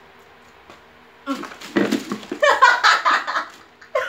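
A woman's loud wordless vocal cries in bursts, starting about a second in after a quiet moment, with some laughter.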